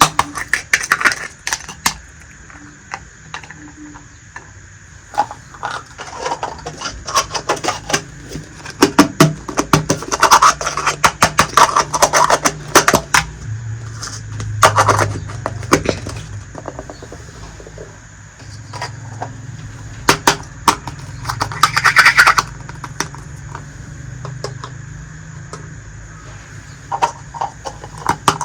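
Small hard toy kitchen pieces clicking, tapping and scraping against each other as they are handled, in irregular clusters of sharp clicks over a faint steady hum.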